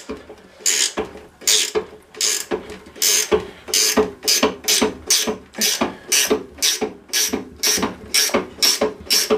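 Ratcheting box-end wrench being swung back and forth on a bolt of a lawnmower engine's bracket, the pawl clicking on each return stroke. The clicks run in a rapid, even train of about three a second.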